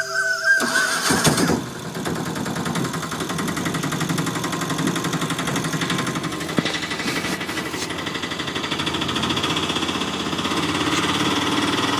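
A small engine running steadily with a fast, even putter, starting after a short whistled music tune cuts off about a second in.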